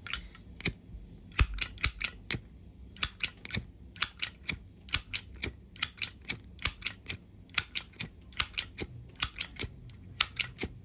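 Zippo lighter's hinged metal lid being flipped open and snapped shut over and over, a run of sharp metallic clicks with a short ringing tail, mostly in close pairs about once a second.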